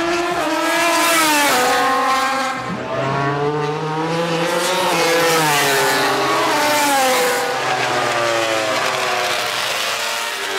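800cc four-cylinder MotoGP racing motorcycles passing at speed, more than one engine note overlapping. The engine pitch climbs and drops again and again as the riders shift gears and brake for the corner.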